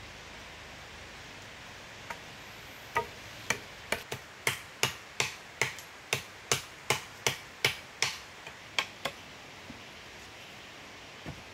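Rapid series of sharp chopping strikes on wood, about two or three a second, starting about three seconds in and stopping around nine seconds, over a steady hiss.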